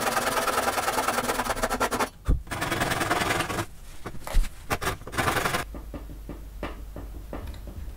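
Japanese pull saw cutting tenons in pine pallet wood: fast sawing strokes for about two seconds, then two shorter bursts of sawing. A sharp knock about four seconds in, and the last couple of seconds are quieter, with only light taps.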